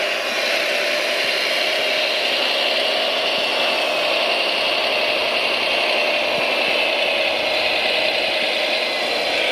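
Radio-controlled construction machine running: a steady mechanical whine whose pitch drifts slightly.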